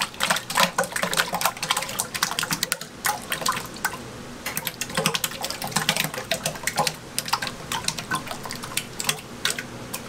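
Dozens of cracked raw eggs poured from a stainless steel bowl into a large stainless steel pot, landing in quick, irregular wet splats and splashes, with a short lull about three and a half seconds in.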